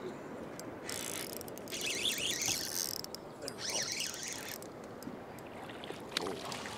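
Spinning reel working while a fish is played in on a bent rod: the reel runs in two spells, from about one to three seconds in and again to about four and a half seconds, over steady wind and water noise.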